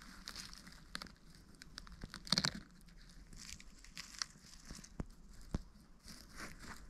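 Irregular rustling and crackling of dry leaves and twigs on a forest floor, with a louder crunch a little over two seconds in.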